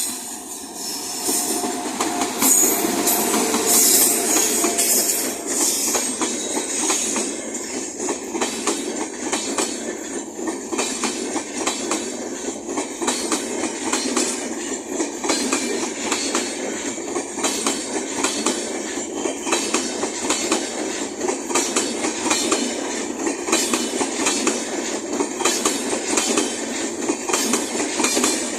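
Express train of LHB coaches passing at high speed: a steady rumble of wheels with rapid clatter over the rail joints, loudest in the first few seconds.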